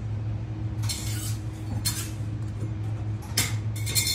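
Metal candy scrapers clinking against a marble candy table several times, the clinks coming in short sharp clusters, over a steady low hum.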